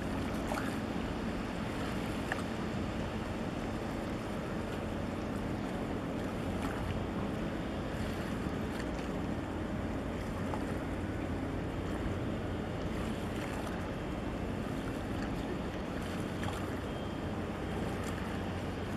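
Steady low drone of boat engines over the noise of harbour water, with some wind on the microphone.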